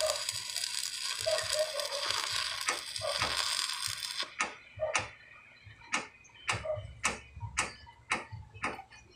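Electric arc welding crackling and hissing on a steel column joint, cutting off suddenly about four seconds in as the arc is broken. A series of sharp metallic taps follows, about two a second.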